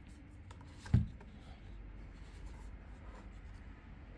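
A Pure Siesta Rise digital clock radio being handled and tilted by hand: a single dull thump about a second in, then light rubbing and small clicks.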